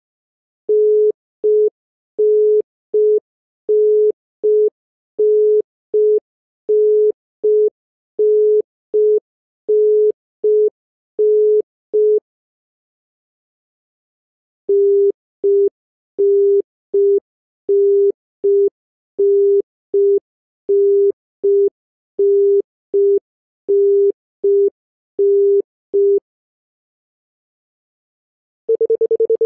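Bahrain telephone congestion tone: a single low tone beeping in long-short pairs, about one pair every second and a half, signalling that the network cannot complete the call. It plays in two runs of about eleven seconds with a short silent gap between them. Just before the end a different, continuous tone begins.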